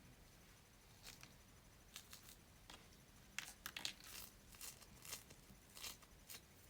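Faint handling noises: a series of short rustles and crinkles, thickest in the middle of the stretch.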